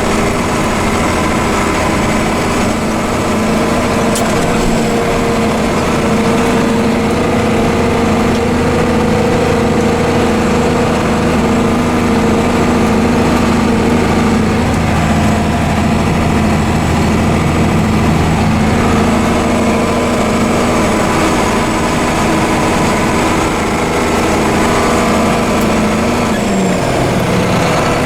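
Heavy engine running steadily at a constant speed. Its pitch drops about 26 seconds in as it slows down.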